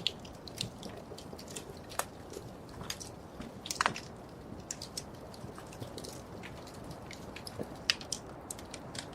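Wood fire crackling: irregular sharp pops and snaps over a soft steady hiss, with a few louder snaps near four and eight seconds in.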